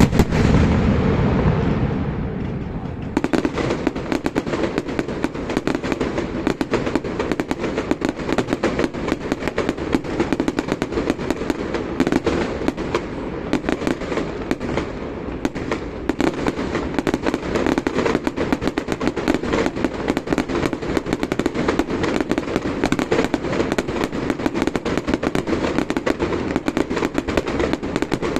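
Fireworks display: a loud bang right at the start, followed by a low rumbling echo. From about three seconds in comes a dense, continuous rapid crackling of many small pops.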